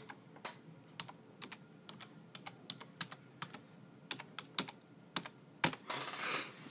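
Typing on a computer keyboard: irregular key clicks, a few a second, with a short louder hiss near the end.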